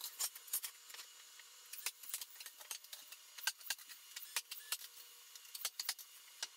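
Faint, irregular light clicks and taps of hand-tool and lumber handling on a wooden floor frame. There are no loud shots.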